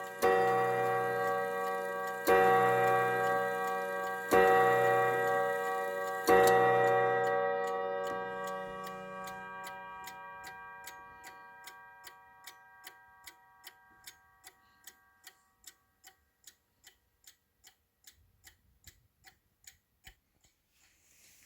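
Howard Miller triple-chime clock striking the hour: four deep, ringing strikes about two seconds apart, the last fading out over several seconds. Then the movement ticks evenly, about two ticks a second.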